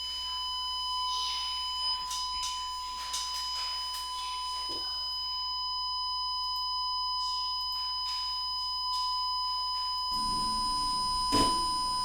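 Steady 1004 Hz test tone from a telephone transmission test set's monitor, with a few small clicks from handling the equipment; a low buzz joins the tone about ten seconds in.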